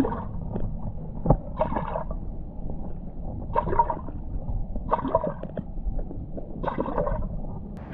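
H&H slip-on popping cork being jerked across pool water, heard from underwater: five or six muffled gurgling pops a second or more apart. The noise comes purely from the cupped face chugging water, with no rattles.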